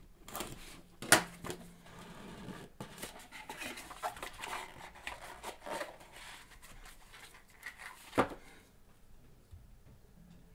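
Shrink wrap on a cardboard Leaf Flash baseball card box being slit with a box cutter and torn off, crinkling as it is handled, with a sharp snap about a second in and another about eight seconds in.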